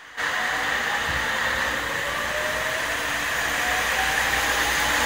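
KiHa 47 diesel railcar's engine running under power as the train pulls away, a steady low drone with a faint tone slowly rising in pitch as it gathers speed.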